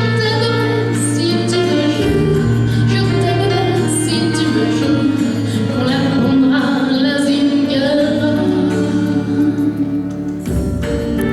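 A woman singing long held notes over an instrumental backing.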